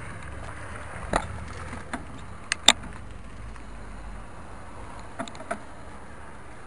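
Steady low rumble of wind and road noise from a moving action camera, broken by several sharp knocks and clicks as the camera jolts in its mount. The loudest knock comes about two and a half seconds in.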